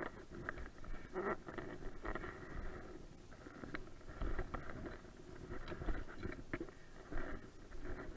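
Muffled handling noise: rustling and irregular light knocks as fishing rods, reels and tackle are moved about in a small boat, over a steady dull hiss.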